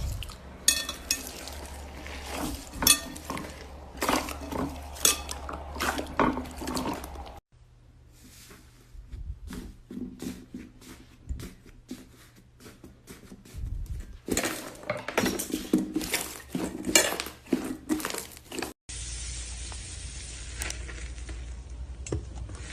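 Slime being handled up close, with dense crackling clicks and small pops. It comes in three separate clips that cut off abruptly, the last one more of a steady hiss.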